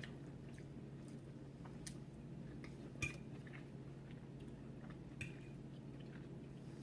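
Faint clicks and clinks of crab shell and utensils against a plate while king crab is picked apart, with two sharper ringing clinks about three and five seconds in, over a steady low hum.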